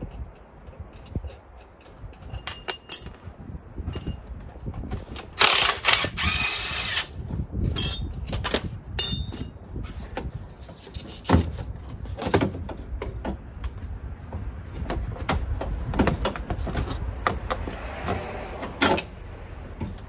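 Hand-tool work on a car's front end: scattered knocks and metal clinks, with a power tool running for about a second and a half some five seconds in and briefly again a couple of seconds later. This is the work of unbolting the A/C compressor so the lower control arm's through bolt can be removed.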